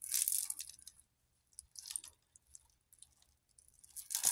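Wet scour pad scrubbing verdigris off a metal necklace chain in a salt and baking soda solution: short scratchy rasps at the start and about two seconds in, and a louder wet rustle near the end.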